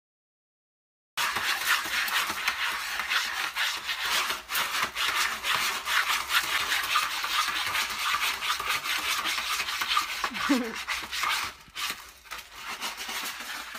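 A cat digging and scratching in a litter tray of pellet cat litter: rapid, gritty scraping and rattling of granules. It starts suddenly about a second in and grows quieter near the end.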